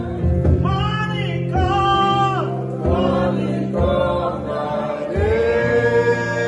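Gospel song: voices singing long held notes that bend in pitch, over a steady instrumental backing.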